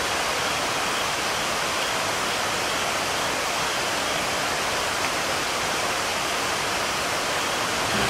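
Steady rushing of a river, an even hiss with no breaks or changes.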